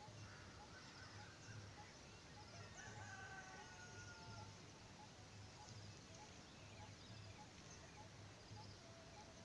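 A rooster crowing faintly once, a call of about two seconds starting near three seconds in and falling away at its end, over faint chirps of small birds and a faint low throb pulsing about twice a second.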